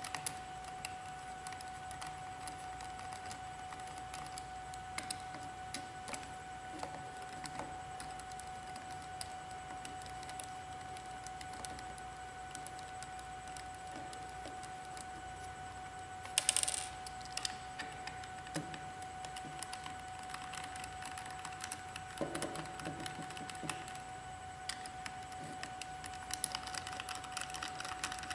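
Small clicks and ticks of a hex screwdriver turning out tiny screws from the plastic housing of a Panduit PAT4.0 cable tie tool head, with hands shifting the tool, over a steady faint hum. A brief louder scrape comes about halfway through.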